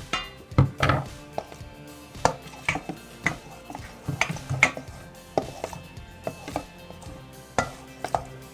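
A utensil knocking and scraping against a bowl in irregular clacks while glue and gold paint are stirred together.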